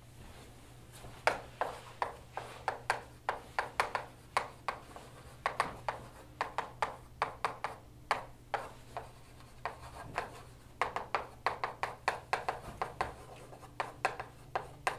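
Chalk writing on a blackboard: quick runs of sharp taps and short scratches as letters and symbols are written, with a brief pause about two-thirds of the way through. A steady low hum lies underneath.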